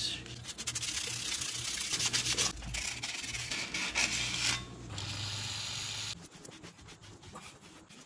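Worn 80-grit sandpaper on a sanding sponge scrubbed back and forth across a motorcycle's rear brake rotor, scuffing off the glazing so new pads can bed in. The sanding stops briefly twice and ends about six seconds in, leaving only faint rubbing.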